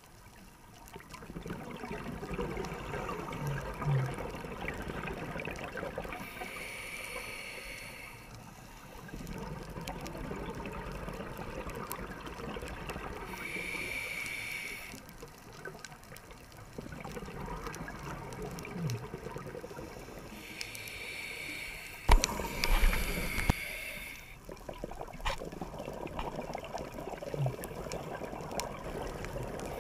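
A scuba diver breathing through a regulator underwater: a hissing inhale with a thin high whine, then a long bubbling exhale, repeating about four times. A couple of sharp knocks come about two-thirds of the way through.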